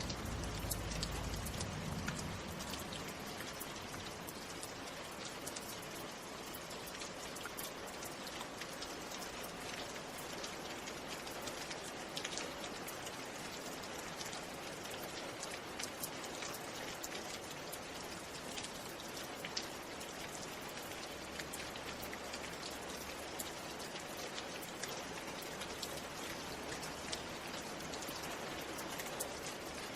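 Steady rain, with many separate drops ticking through an even hiss. A low rumble sounds in the first two seconds.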